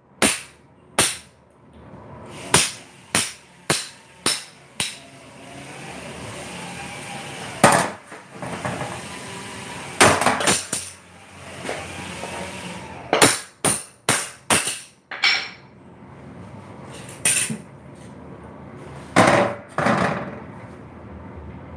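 Hammer blows on a hard object: a series of sharp strikes in irregular clusters, some in quick runs of four or five.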